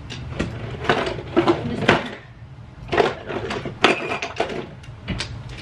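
Small objects being picked up and set down on a tabletop: an irregular run of light clicks and knocks in several clusters, with a sharper click about two seconds in and another near four seconds.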